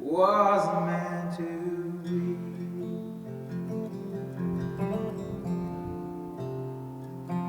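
Acoustic guitar playing sustained chords in a song's closing instrumental passage, opening on a loud chord at the start.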